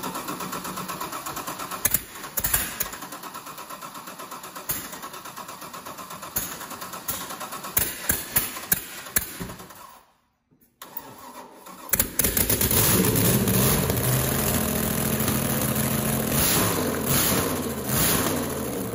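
Carburetted marine V8 engine on a test stand cranking on its starter with several sharp pops, then catching about twelve seconds in and running, its revs rising and falling. The sound cuts out briefly just before it catches.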